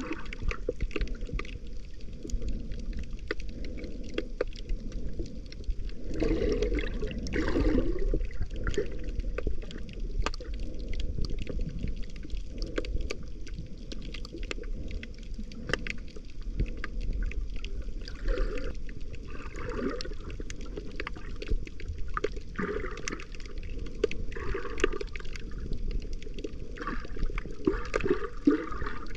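Underwater sound picked up by a submerged camera: muffled water gurgling and sloshing over a steady low rumble, with scattered sharp clicks and irregular louder surges every few seconds.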